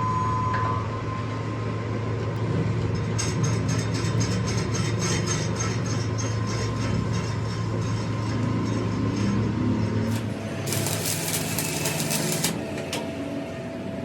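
Metalworking tools on a steel truck rim: a steady low hum with fine, even ticking, then a harsh hissing burst about ten seconds in.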